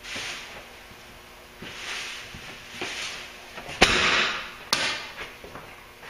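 Compressed air hissing from an air-hose tool in about five short bursts, the loudest about four seconds in, beginning with a sharp click.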